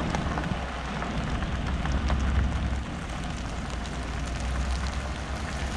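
Vehicle driving slowly, with a low rumble of engine and road and a steady crackling hiss over it.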